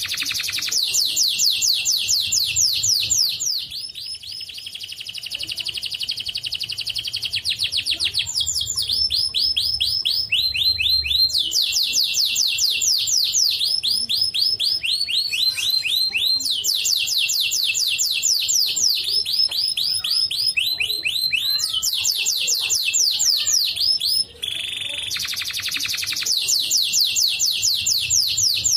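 White canary singing a long continuous song of fast trills (rolls), the phrase changing every few seconds. A steady whistled note sounds at the start, and again about 24 seconds in after a momentary break.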